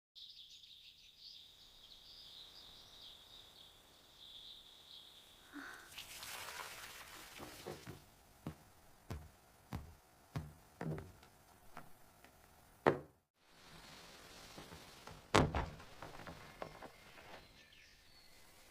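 A steady, wavering high-pitched chirring for the first few seconds, then a short hiss and a series of irregular knocks and thunks, about a dozen, with two much louder thuds in the second half.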